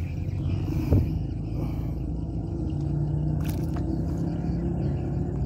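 A steady low rumble with a faint held hum, and a single knock about a second in.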